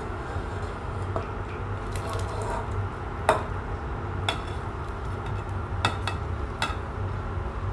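A plastic spatula scraping and knocking against a porcelain plate as chopped vegetables are tipped into a stainless steel pot. There are several sharp clinks, the loudest about three seconds in, over a low steady hum.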